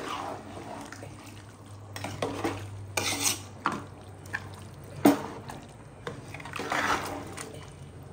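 A metal spoon stirring a thick meat curry in a large metal pot, scraping through the gravy and knocking against the pot's sides in irregular clanks. The sharpest clank comes about five seconds in, over a low steady hum.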